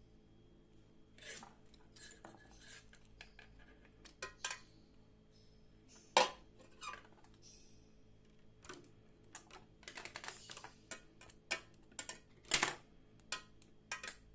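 Irregular clinks and knocks of hard objects, metal tools and dishes, being picked up and set down on a work surface. The loudest knocks come about six seconds in and again near the end.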